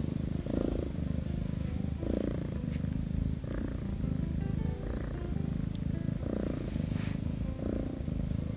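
Korean shorthair kitten purring close up, without a break, while it is petted. The purr swells and eases with each breath, about once every one and a half seconds: contented purring.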